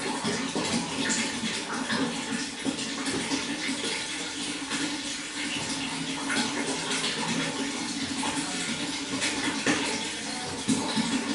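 Running water flowing and splashing without pause: a steady rush broken by many small splashes and gurgles.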